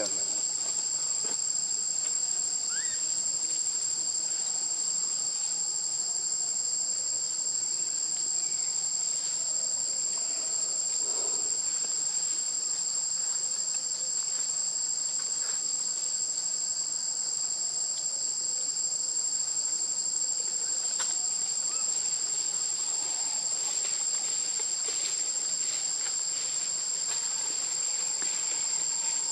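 Steady, high-pitched insect chorus holding two pitches without a break, with faint scattered clicks underneath.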